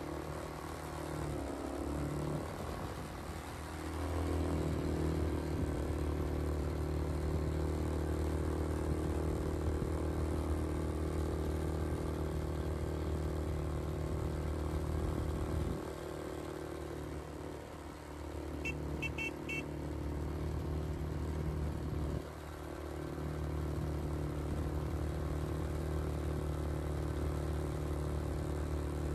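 ATV engine running as the quad bike rides along, pulling harder about four seconds in, then easing off and picking up again twice past the middle. A few quick high chirps come about two-thirds of the way through.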